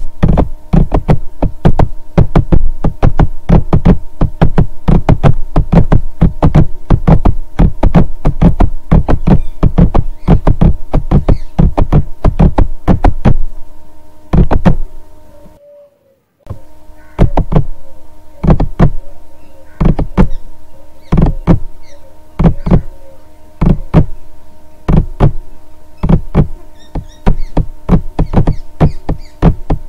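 Background music: a steady, low drum beat over held tones. It fades out about halfway, drops out for a moment, then starts again.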